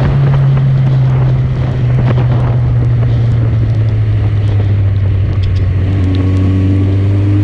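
Suzuki GSX650F's inline-four engine running under way, its note dropping lower about two seconds in and sinking a little further later on, with wind noise buffeting the microphone.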